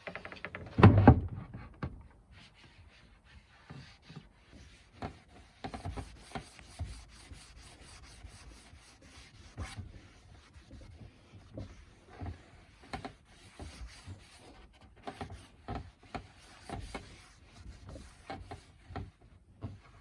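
Irregular hand strokes rubbing across a wooden surface, following a loud knock about a second in.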